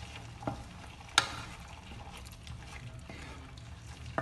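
A wooden spatula stirs coconut cream with sautéed aromatics in a non-stick pan, over a faint sizzle and a steady low hum. The spatula knocks against the pan twice, lightly about half a second in and sharply just after a second in.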